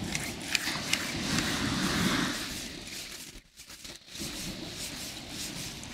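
Rushing noise of wind and sea surf that swells and fades, with a few sharp clicks in the first second from handling the fishing rod and reel. The noise drops out briefly a little past halfway.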